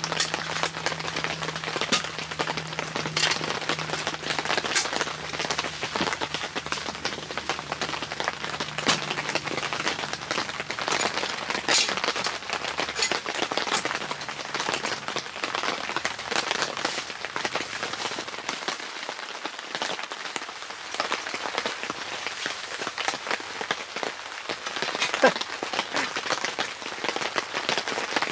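Rain falling on a tent shelter's fabric, heard from inside: a dense, even hiss of drops with many scattered sharper drips. A faint low hum underneath fades out about halfway through.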